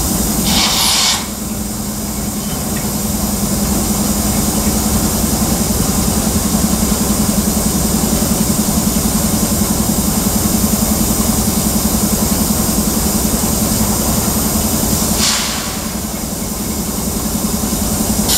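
Freight train boxcars rolling past: a steady rumbling drone of wheels on rail with a fast flutter. A brief hissing burst comes about a second in and another near the end.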